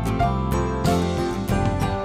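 Background music with a steady beat and plucked-guitar notes.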